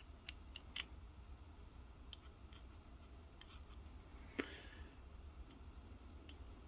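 Faint scattered clicks and light taps from handling small tools and parts at a workbench, with one sharper tap a little past four seconds in, over a steady low hum.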